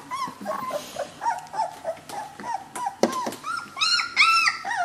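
Three-week-old Chinook puppies whimpering: a string of short, arching squeaks several times a second, with a few louder, higher-pitched whines about four seconds in.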